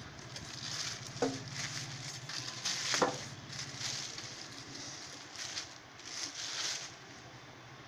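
Clear plastic packaging crinkling and rustling in bursts as it is handled and pulled off a sewing machine, with two sharp knocks about one and three seconds in, the second the loudest.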